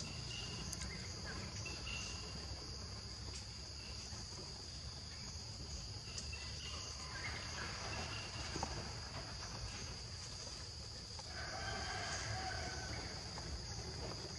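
Steady, high-pitched drone of insects in the forest, with a few faint short chirps now and then and a brief faint call about eleven seconds in.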